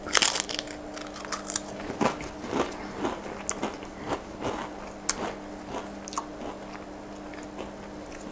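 A Pringles crisp bitten with a loud crackling snap right at the start, then chewed with crunching that thins out and stops after about six seconds.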